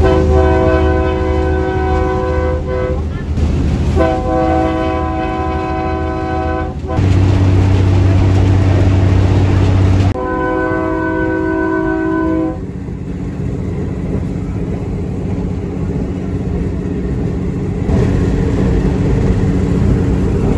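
Train horn sounding three long blasts, each a steady chord of several tones lasting two to three seconds, over the continuous low rumble of a passenger train running on the rails.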